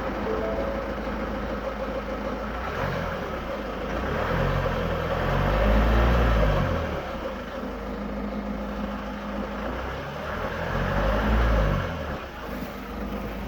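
Ford Mondeo Mk5 running, with a low sound that rises and falls in pitch twice, loudest about six and about eleven seconds in. The owner is asking whether this is a weird sound.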